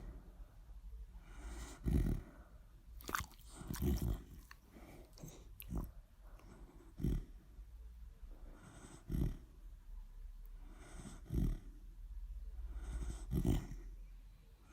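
A sleeping dog snoring, one loud snoring breath about every two seconds, six or so in all. A few seconds in, a flurry of short, sharp mouth clicks comes through between breaths.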